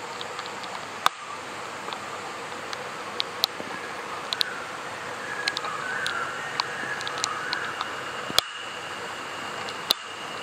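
Steady rain, with scattered heavy drops landing in sharp taps. A high steady tone comes in about six seconds in and holds.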